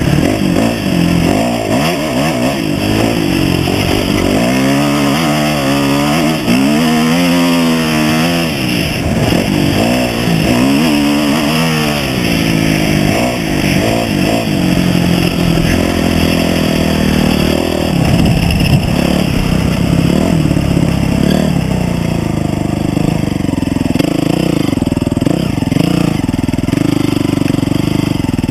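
Off-road vehicle engine revving up and down repeatedly as it is ridden over a sandy desert trail, then running at a steadier, lower pitch for the last several seconds.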